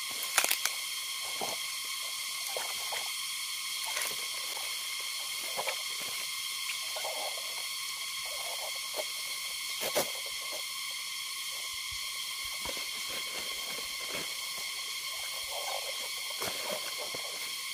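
Peeled bamboo shoots knocking and rustling as they are handled and packed into a woven bamboo basket, with a few sharp clicks, the loudest just after the start. Under it runs a steady high insect drone.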